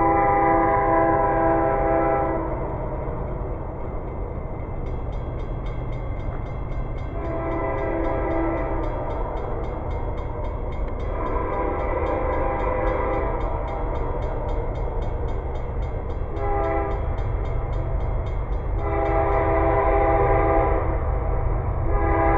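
A diesel locomotive's multi-chime air horn blowing as the train approaches: several long blasts and one short one, the pattern sounded for a grade crossing, over a steady low rumble.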